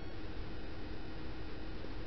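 Steady, featureless hiss with a faint steady hum underneath and no distinct events.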